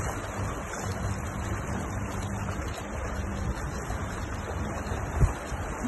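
Wind rumbling on the microphone over choppy sea waves, with a single sharp bump about five seconds in.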